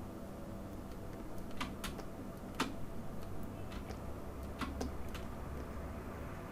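Sparse clicks of computer keys, about eight at irregular intervals, over a faint steady low hum.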